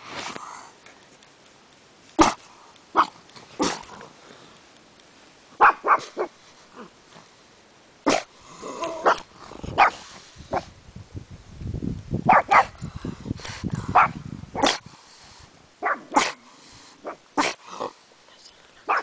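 Pug barking on guard in short, sharp single barks spaced irregularly, with a low rumble in the middle.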